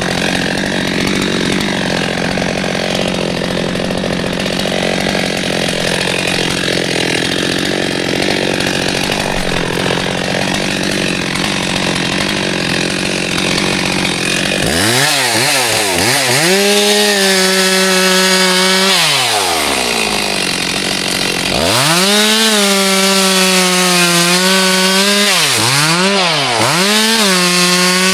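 Two-stroke chainsaw at full throttle cutting through wood for about the first half, then running free with the throttle let off and opened again several times, the engine note dropping and rising.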